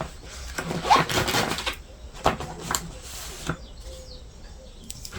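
Rustling and crinkling as stiff printed cross-stitch fabric is unfolded and handled, with a few light knocks on the table.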